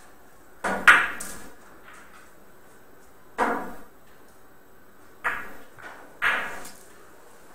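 Carom billiards shot: the cue strikes the cue ball and the balls clack against each other and the cushions. There is a quick cluster of sharp ringing clacks about a second in, the loudest, then three more single clacks spread a second or two apart as the balls keep travelling round the table.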